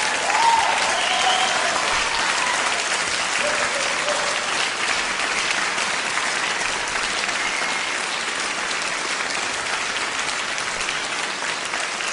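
Concert hall audience applauding, a dense steady patter of many hands clapping, with a few cheering voices in the first two seconds.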